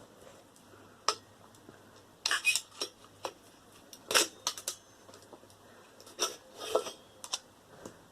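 Metal parts of a scrap microwave clinking and rattling as they are worked loose by hand, with the magnets being freed: a series of sharp clinks and short rattles, the loudest about four seconds in.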